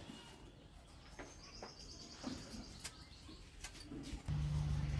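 Birds chirping faintly, with a few soft scattered clicks; a low steady hum comes in near the end.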